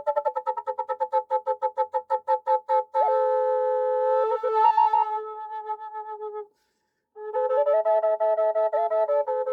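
Native American style drone flute of poplar and Osage orange played in two voices, a steady drone under a melody line. For the first three seconds the notes pulse rapidly, about seven times a second, then settle into held notes; after a short breath break about six and a half seconds in, drone and melody resume.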